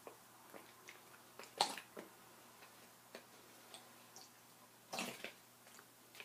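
Squeeze bottle squirting warm soapy water onto loose wool roving in short spurts, the two strongest about a second and a half and five seconds in, with faint ticks and drips between.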